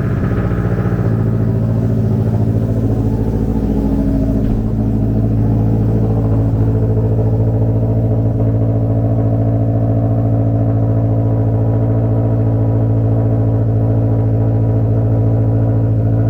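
Scion FR-S 2.0-litre flat-four engine just after a cold start: the start-up flare settles within the first second into a steady, loud fast idle.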